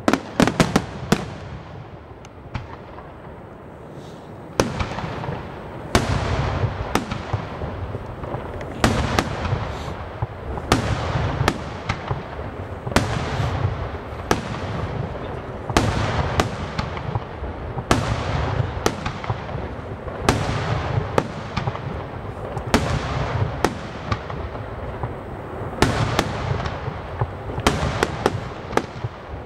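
Aerial fireworks shells from a Bruscella Fireworks display bursting in quick succession. There are a few sharp reports near the start, then from about four seconds in a steady run of about one burst a second. Each burst is followed by a crackle of popping stars, over a low rumble.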